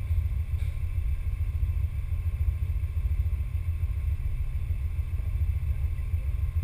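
Low, uneven rumble of wind buffeting the camera's microphone, with a faint hiss of the surroundings behind it.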